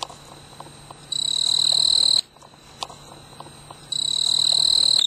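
Snowy tree cricket (Oecanthus fultoni) stridulating: a high, pulsing trill that sounds for about a second, breaks off, and starts again near the end.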